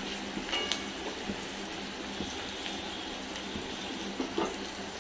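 Sliced onions sizzling steadily in hot oil in a metal kadai while being fried toward golden brown, with a couple of short scrapes of a wooden spatula against the pan, about half a second in and again near the end.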